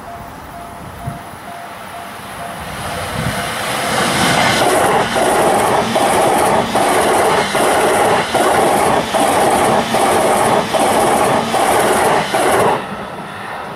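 JR East E657 series limited express electric train approaching and passing close at speed. The rushing wheel-on-rail noise builds over a few seconds, then pulses with a short dip about every 0.8 s as each car goes by, and falls away sharply as the last car clears.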